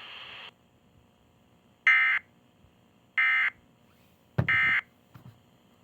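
Emergency Alert System end-of-message code: three short, identical bursts of shrill two-tone digital data, about a second and a bit apart, signalling that the alert is over. Before the bursts, a steady radio hiss cuts off about half a second in.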